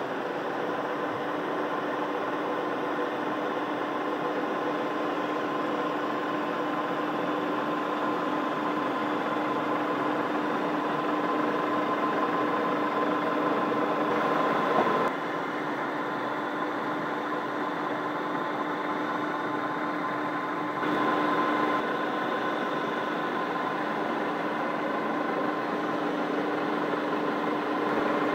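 Köping S8C metal lathe running with a steady mechanical hum and a constant whine from its motor and gearing. The sound drops a little about halfway through and comes back louder about six seconds later.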